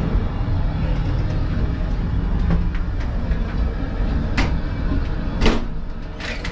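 Steady low rumble of a moving passenger train, heard from inside the carriage. In the second half a metal door latch bolt is worked, giving two loud sharp clicks about a second apart and then a short rattle of clacks near the end.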